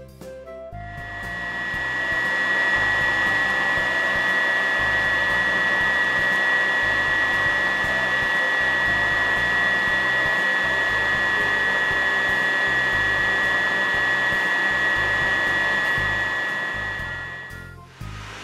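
Sanitaire upright vacuum cleaner running: a steady high whine over a rush of air. It comes up about a second in and cuts off just before the end.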